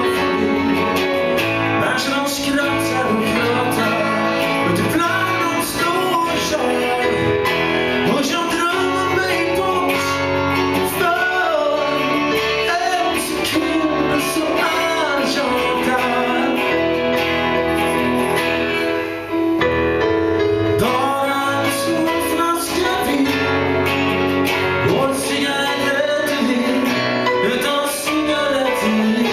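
A band playing a song live, with singing over guitars.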